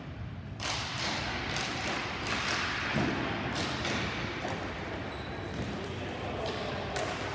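Ball hockey play: sticks and the ball knocking in a run of sharp, irregular clacks that starts about half a second in, with a heavier thud about three seconds in.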